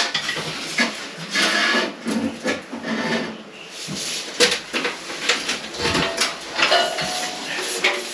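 Irregular knocks, clatter and scraping as a steel beam is lifted and shifted into place among steel props.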